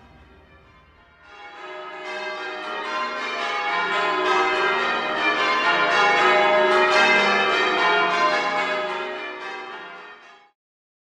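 Church bells change ringing, many strikes overlapping. The ringing fades in about a second and a half in, swells, then fades out to silence near the end.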